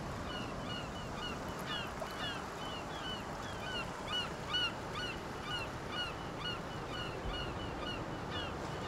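Birds calling in short, quick chirps, several a second, over a steady background hiss.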